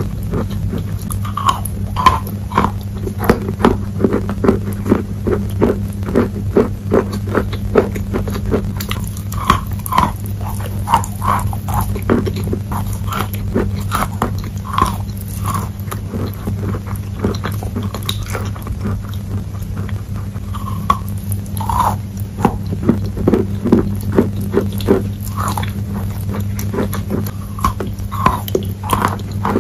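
Close-miked biting and chewing of wet sidewalk chalk: a steady stream of crisp crunches and small crackling clicks, with a few sharper bites standing out, over a steady low hum.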